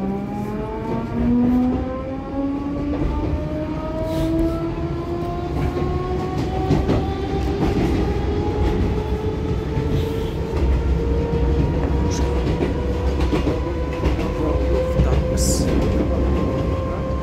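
Metro train's traction motors whining with a pitch that climbs as the train accelerates, the rise levelling off toward the end, over steady wheel and rail rumble with occasional clicks, heard from inside the carriage.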